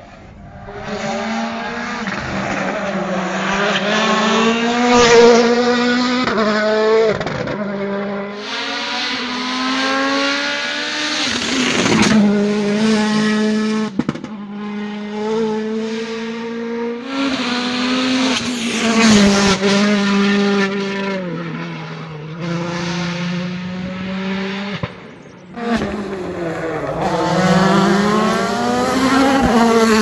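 WRC Plus rally cars' turbocharged four-cylinder engines at full throttle as the cars pass one after another. The engine pitch climbs and drops sharply with each gear change.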